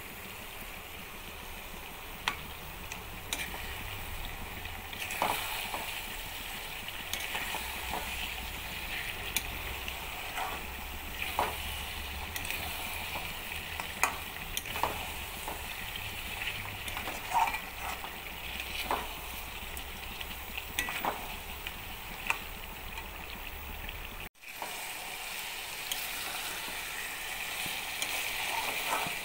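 Chicken curry sizzling in a steel pot as a spatula stirs it, with scattered clicks and scrapes of the spatula against the pot over a steady frying hiss.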